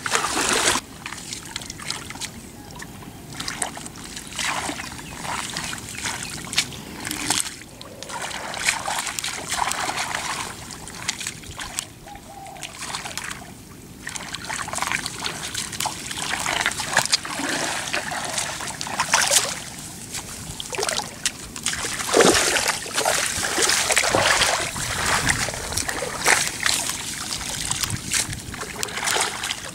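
Shallow, muddy paddy water splashing and sloshing irregularly as people wade through it and work their hands and a shovel in the mud.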